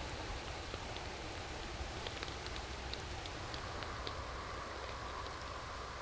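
Wood campfire crackling, with scattered sharp pops over a steady rush of stream water. A faint steady tone comes in a little past halfway.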